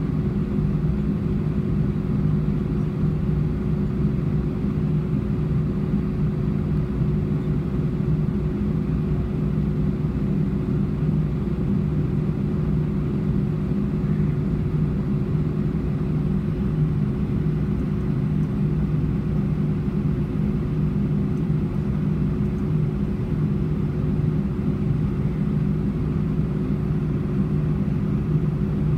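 Jet airliner's engines idling during taxi, heard inside the cabin: a steady low drone with a constant tone running through it.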